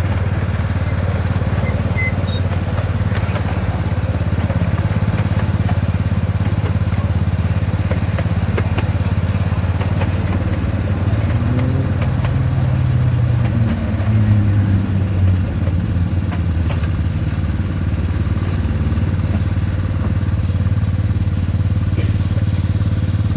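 Engine of a miniature Hymek-outline locomotive running steadily under way. About halfway through its note rises, then drops back a few seconds later with a brief swell in loudness.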